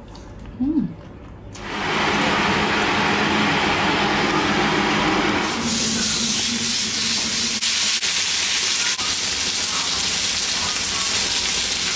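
Food sizzling in hot oil, a steady hiss that starts about two seconds in and turns brighter about halfway through, with a few faint clicks.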